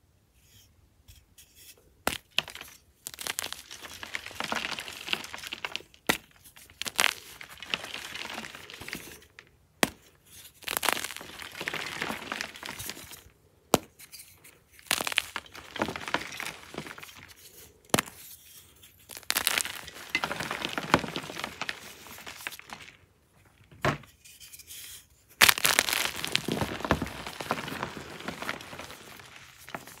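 Blocks of gym chalk snapped and crushed by hand: sharp cracks as the blocks break, each followed by dry, crumbly crunching as the pieces are squeezed into powder, in repeated bouts every few seconds.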